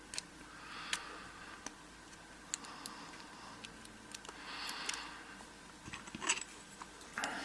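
Scattered faint metallic clicks and a couple of soft scrapes as a thin metal shim is worked into the body of an American A1100 padlock.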